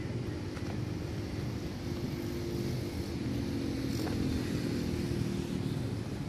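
Diesel engine of a tracked excavator running steadily, with a low, even drone and a couple of faint ticks.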